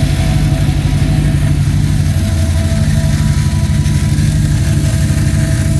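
Car engine idling steadily with a rapid clicking from the fuel-line fittings (pressure relief valve, ethanol sensor adapter and check valve) as fuel flows through them; the click comes from these fittings, not the fuel pump.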